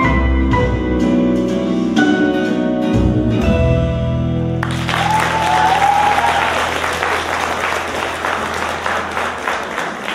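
The song's backing track ends on a held, fading chord, and about four and a half seconds in an audience breaks into applause that continues over it.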